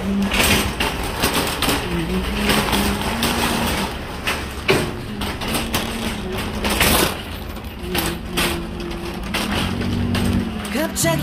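Metal wire shopping cart rattling and clattering as it is pushed over the exit threshold and along a concrete sidewalk, with irregular sharp knocks from the wheels and basket.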